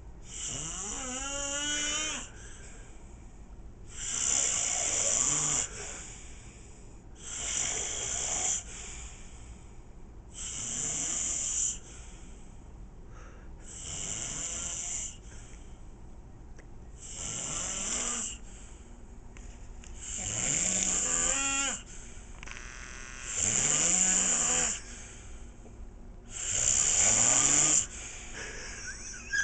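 A man snoring in his sleep: about nine snores, one every three seconds or so, each lasting a second and a half to two seconds, with the last few louder.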